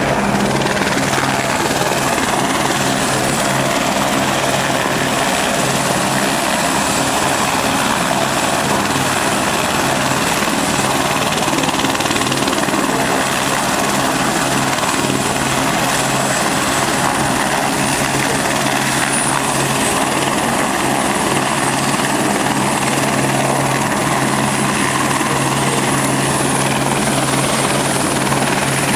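Helicopters running steadily on a rooftop helipad, a constant rotor and engine noise with a faint high whine over it.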